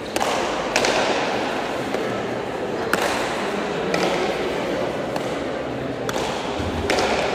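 Pelota smacked by bare hands in a main nue rally and rebounding off the wall and floor: five sharp, echoing smacks at irregular intervals, two close together near the start, one about three seconds in, and two more close together near the end.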